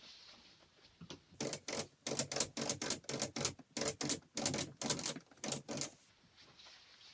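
Green paper backdrop being pulled down and straightened, giving a quick run of crinkly rustles, about three or four a second, that stops about six seconds in.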